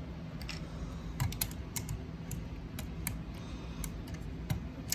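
Small hard plastic clicks and taps of Lego pieces being handled, as a minifigure's headpiece is taken off and the figure is pressed into the car's seat. The clicks come irregularly, about a dozen, with the sharpest near the end.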